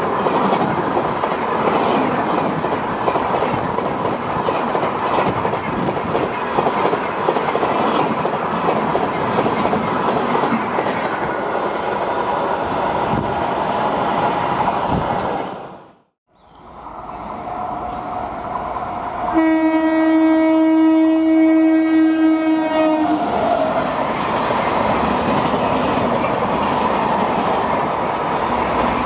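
Express passenger coaches rushing past at speed, with a fast clickety-clack of wheels over rail joints. The sound cuts out, then a train horn sounds one long, steady blast of about four seconds. The next train then rushes past at about 110 km/h.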